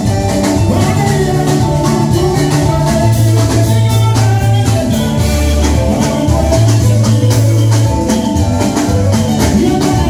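Live Congolese rumba band playing a loud dance groove: electric guitars, drum kit and congas over a repeating bass line.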